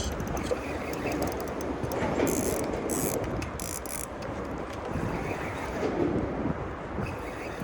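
Shimano Vanquish 3000MHG spinning reel ratcheting and clicking, loudest in a run of rapid clicks about two seconds in, over a steady rush of wind and water.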